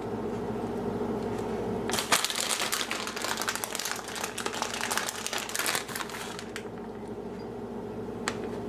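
Packaging crinkling and rustling for about four and a half seconds while grated cheddar cheese is handled, over a steady low hum.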